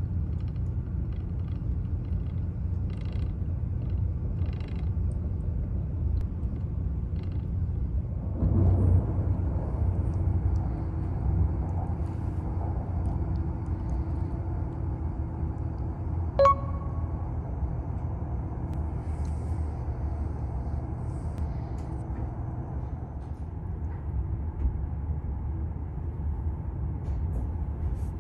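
Steady low rumble of an E7/W7-series Shinkansen train running, heard inside the passenger car. There is a brief louder swell about eight seconds in, and a single sharp click with a short ring about halfway through.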